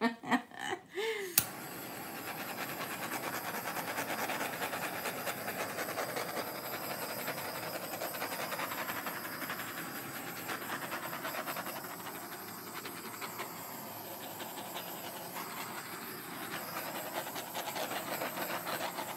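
Handheld gas torch clicking alight about a second in, then a steady hissing flame as it is passed over the surface of a wet acrylic pour painting.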